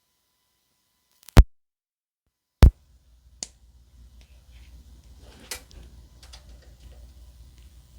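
Two loud electrical pops about a second apart as a lavalier mic's plug connects to a phone through a USB-C headset adapter, followed by a low hum and faint rustling and small taps from the live clip-on mic being handled.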